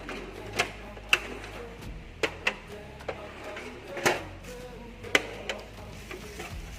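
A series of sharp, irregular clicks and knocks, about eight over several seconds, over a low steady hum.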